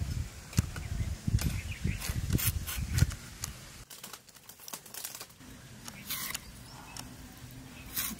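A curved iron hand blade cutting through raw potato: a series of short, crisp cuts. Under the cuts in the first three seconds is a low rumble that stops, leaving a few separate cuts later on.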